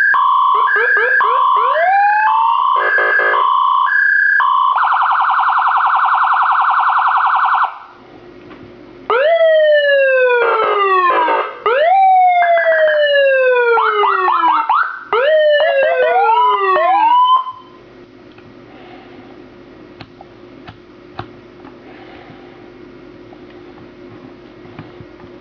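Electronic police siren module cycling through its tones: stepped alternating tones and a fast warble for about eight seconds, then after a short break a run of falling sweeps mixed with quick chirps. It cuts off a little past halfway, leaving only a faint background hum with small ticks.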